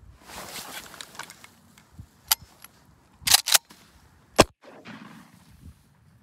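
Grass-covered layout blind flaps being thrown open with rustling of dry grass, then a pump or semi-auto shotgun: a sharp snap about two seconds in, two quick clacks of the action being worked about a second later, and a single shotgun shot soon after, followed by more rustling. The sequence fits a dead round that failed to fire, cleared and replaced by a fresh shell before the shot.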